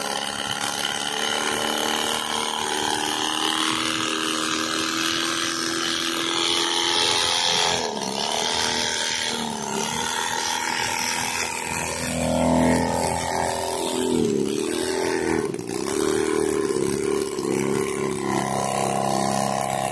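Small experimental aircraft engine running on a test stand. Its speed dips and recovers several times as the throttle is worked, most often in the second half.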